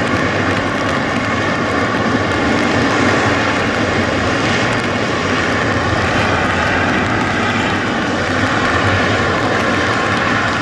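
Boeing 777-300's GE90 turbofan engines running close by: a steady, loud jet noise with a thin whine held at one pitch throughout.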